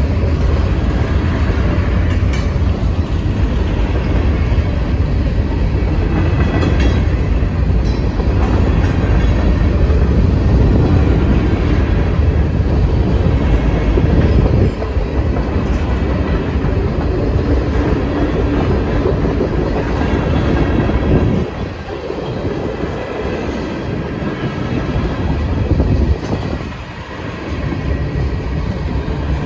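Freight cars of a manifest train (covered hoppers and tank cars) rolling past at a grade crossing: a steady rumble of steel wheels on the rails with some wheel clatter. The rumble eases briefly twice in the second half.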